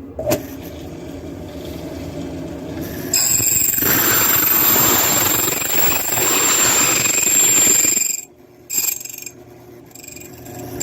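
Key cutting machine switched on with a click, its motor running, then its cutter wheel grinding into a metal key blank for about five seconds, a loud rasping noise over a steady high whine that stops abruptly about eight seconds in.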